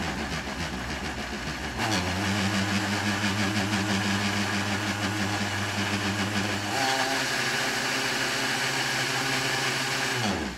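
Countertop blender running loudly as it purees roasted red peppers with broth into a sauce. The motor's note steps up and gets louder about two seconds in and changes again around seven seconds. Near the end it is switched off and winds down.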